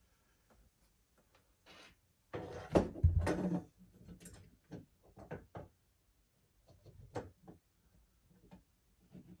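Work noise of fastening a shelf bracket to a closet wall with a cordless drill: a louder rough burst a couple of seconds in, then a scattered string of short clicks and knocks.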